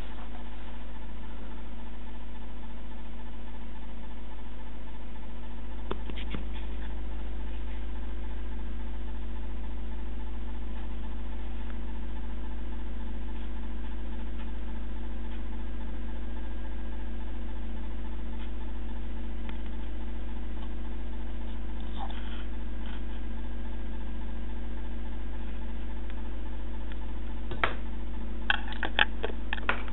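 A steady low electrical or mechanical hum with a few faint steady tones, and a handful of sharp clicks close together near the end.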